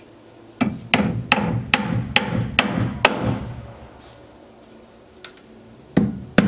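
Hammer driving joist hanger nails through a steel hurricane-strapping plate into a rafter: about seven quick strikes, a little over two a second, each with a short metallic ring. After a pause, two more strikes come near the end.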